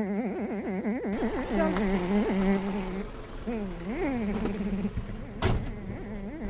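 A bee buzzing in flight, a drone whose pitch wobbles quickly and swoops up and down. A sharp knock about five and a half seconds in.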